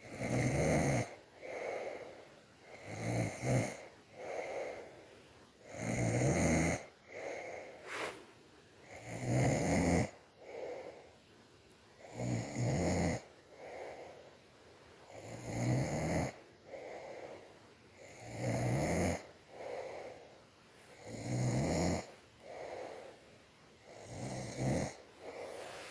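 A sleeping person snoring in a steady rhythm, a loud snore about every three seconds with quieter ones in between.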